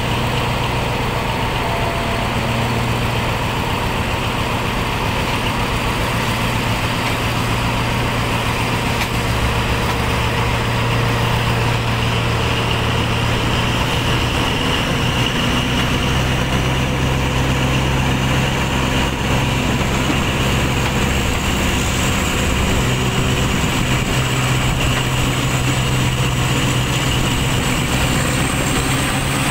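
Diesel-hauled passenger train running slowly, heard from an open coach window: a steady low engine drone mixed with wheel and track noise, and a faint high whine that slowly rises in pitch.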